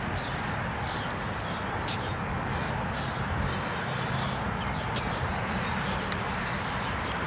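Outdoor ambience: a steady background hiss with small birds chirping over and over, plus a few faint clicks.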